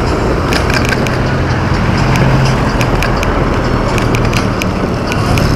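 Riding noise on a fat bike: steady wind and tyre rumble with many scattered rattling clicks.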